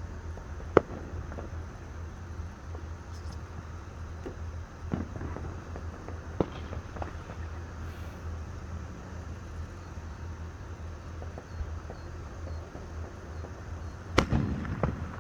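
Fireworks and firecrackers going off in scattered single bangs, the loudest about a second in and a quick run of several near the end, over a steady low rumble.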